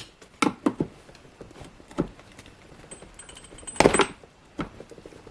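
Sharp plastic clicks and knocks, a few scattered ones and then a louder cluster a little before the end, as a screwdriver chips a leftover piece of drilled-out plastic off a BMW E90 door trim.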